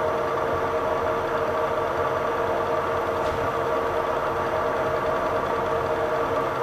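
Boring machine running steadily, its long, thin boring spindle turning inside a D4CB engine block's balance shaft bushing bore as the new bushing is bored to size. It gives an even, multi-toned hum.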